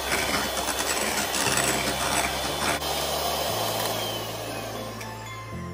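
Electric hand mixer running, its beaters whipping eggs, sugar and vanilla essence into a thick, pale batter in a glass bowl. The steady motor-and-beater noise fades over the last couple of seconds.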